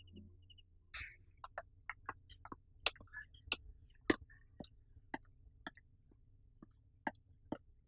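Crickets chirping briefly, then from about a second in, footsteps on a tiled floor: short sharp clicks of shoes at about two steps a second, irregular and fairly faint.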